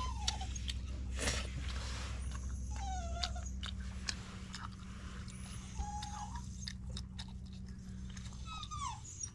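A dog whining in short, falling whimpers, four times, while a person eats noodles close by, chewing and slurping.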